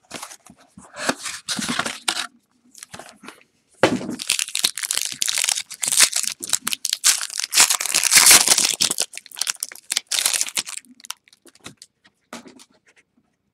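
Wrapping crinkling and tearing as a Topps Inception football card box is unwrapped and opened by hand, heaviest through the middle and tailing off into a few light handling clicks near the end.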